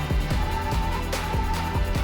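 Background music with a steady electronic beat: kick drum, cymbal hits and a held bass line.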